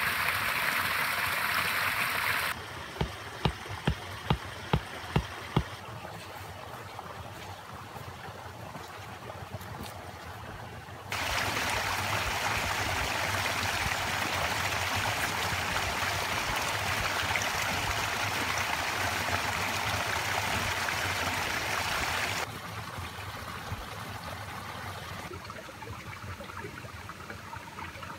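Flowing stream water, a steady rushing hiss that cuts abruptly louder and quieter a few times. About three seconds in, a run of about seven sharp knocks in quick succession.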